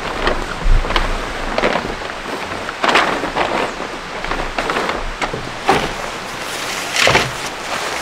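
Black plastic tarp crinkling and rustling as it is spread out on the deck, in several louder crackling bursts, with wind rumbling on the microphone.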